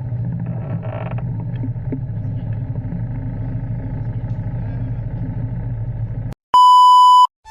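Motorcycle running on the road with wind noise, a steady low rumble that cuts off abruptly about six seconds in. A loud electronic beep follows, one steady high tone lasting under a second.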